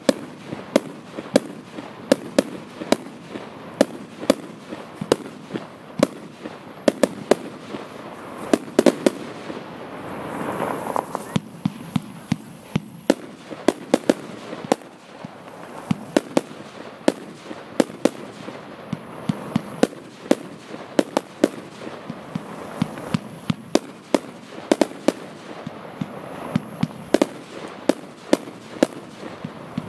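F2 consumer firework battery (cake) firing a long run of sharp shots and bangs, several a second in an irregular rhythm, with a brief swell of rushing noise about ten seconds in.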